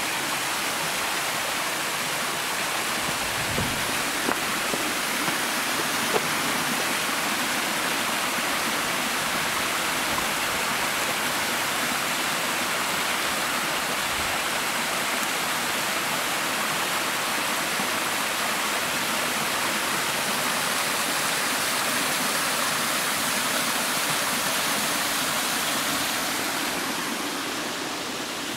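Small waterfall splashing down mossy rock into a shallow rocky stream: a steady rush of falling water, dropping slightly in level near the end.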